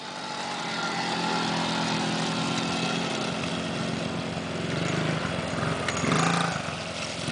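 Small engine of a child's youth ATV running under throttle as it rides through mud, its pitch wavering as the throttle changes. Near the end a child's small dirt bike comes in close and its engine gets louder.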